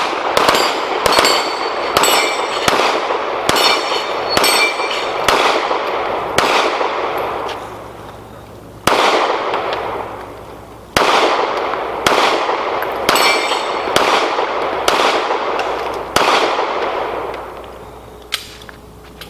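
Two shooters' pistols firing rapid strings of shots, about two a second, with steel plate targets ringing after many of the hits. The firing pauses twice near the middle, then resumes in a fast string, and a single faint shot comes near the end.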